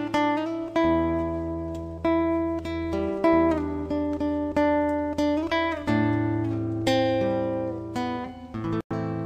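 Guitar music: plucked and strummed notes over a sustained low bass note. The sound cuts out for an instant near the end.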